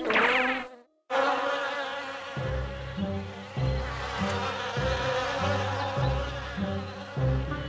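Cartoon bee swarm buzzing steadily. It starts after the end of a jingle and a brief silence about a second in, and from about two seconds in a low pulsing beat runs under it.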